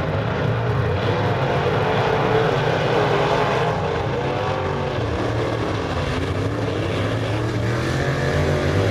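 A pack of open-wheel modified dirt-track race cars running together, their engines a loud, steady blended drone whose pitch wavers as the cars speed up and ease off through the turns.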